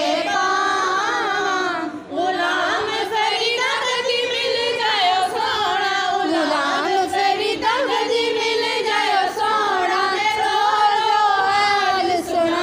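Voices singing a devotional chant: long melodic phrases with wavering, gliding held notes and a brief break about two seconds in.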